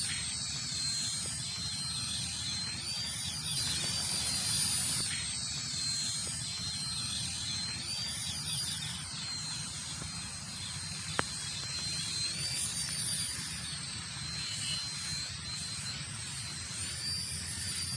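Small toy RC helicopter's electric motors and rotors whining as it hovers low on its own, held near the ground by its ground sensor; the whine's pitch rises and falls every few seconds. A single click about eleven seconds in.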